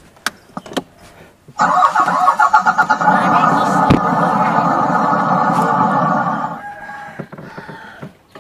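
Battery-powered ride-on toy truck giving out a steady engine-like noise that starts suddenly, holds for about five seconds and fades away, with a sharp click partway through.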